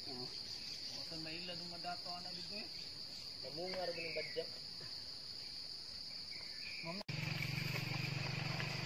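Insects chirring in a steady, high-pitched drone, with faint voices in the distance. About seven seconds in the background changes abruptly and a low steady hum joins.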